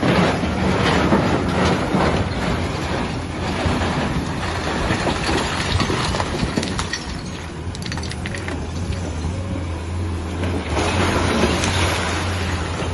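LiuGong excavator's diesel engine running steadily, with louder stretches of rough crunching and scraping noise near the start and again about eleven seconds in.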